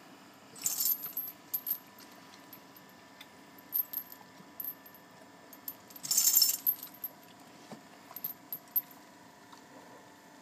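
Metallic jingling from a dog's collar hardware and chain as the dog moves its head: a short burst about a second in and a louder one around six seconds in, with scattered small clicks between.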